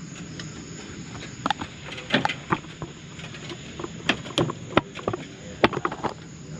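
Irregular clicks and knocks of tools and metal parts while a car's fuel tank is being unbolted and lowered, over a low steady hum.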